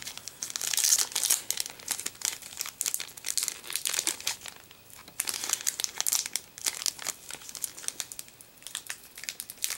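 Foil booster-pack wrapper of a Pokémon trading card pack crinkling and crackling in hands as it is pulled at to tear it open, in two long spells with a short lull between. The tough wrapper resists tearing by hand.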